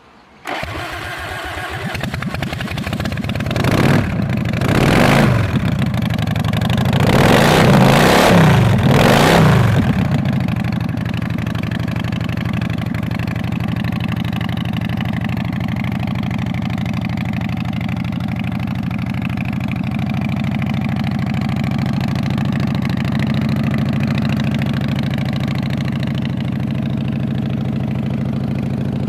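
Custom Harley-Davidson V-twin motorcycle engine starting up, revved a few times in the first ten seconds, then settling into a steady idle.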